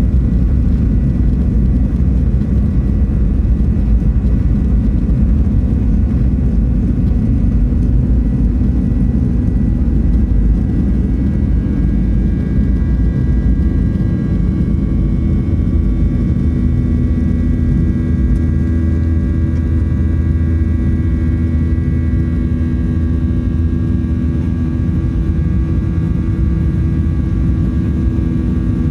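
Cabin noise of a Boeing 737's CFM56 jet engines during takeoff and climb: a loud, steady low rumble with several thin whining tones on top, which shift slightly about halfway through.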